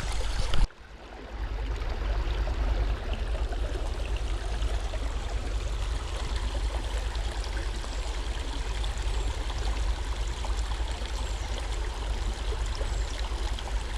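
A small stream running, a steady babble of water flowing over the creek bed.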